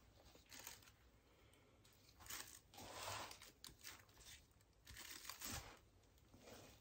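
Near silence broken by a few faint, short rustles and brushes, three spells in all, from gloved hands handling a spinning Lazy Susan.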